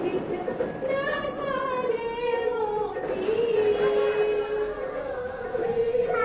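A woman's voice singing a devotional aarti in long, slowly wavering held notes.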